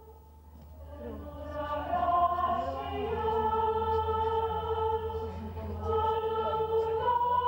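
Choir singing slow, long-held notes, fading in over the first two seconds, with a low steady hum underneath.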